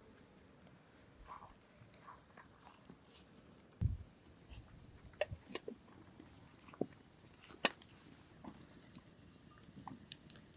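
Faint, scattered small clicks and taps, with a low thump about four seconds in and a few sharper clicks after it.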